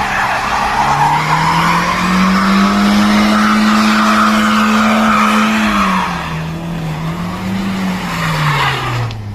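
A car engine revving hard while its tyres spin and hiss in snow; the revs climb and hold for a few seconds, then drop and fade away near the end.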